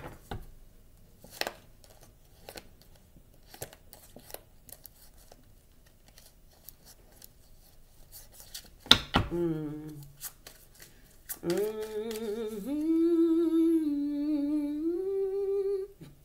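A woman humming a slow tune in long held notes, starting about two-thirds of the way in and stopping just before the end. Before that, scattered light clicks and taps, then one sharp click just past halfway followed by a brief hum.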